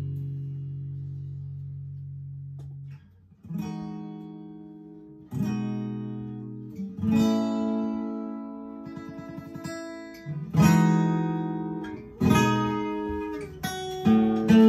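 Acoustic guitar playing slow chords. A held chord dies away over the first three seconds, then single chords are struck about every one and a half seconds and each is left to ring and fade.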